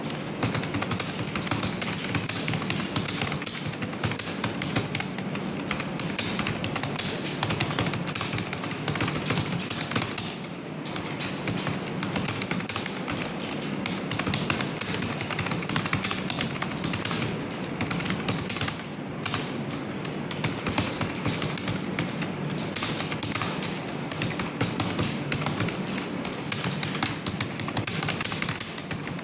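Computer keyboard being typed on fast and without stopping, a dense run of key clicks, with brief lulls about ten and nineteen seconds in.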